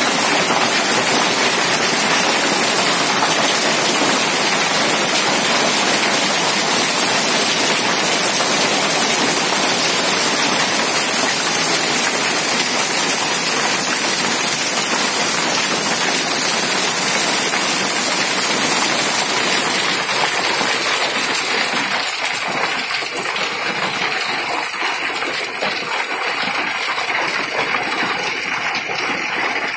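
Heavy rain mixed with hailstones pelting down steadily. It eases a little about two-thirds of the way through, and separate hits stand out more.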